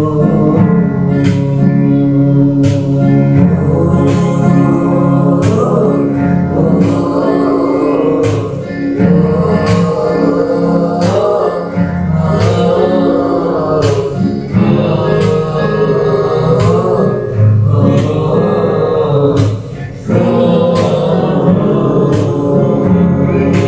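Shalawat song: voices singing over darbuka drum strokes, with a sustained low accompaniment underneath.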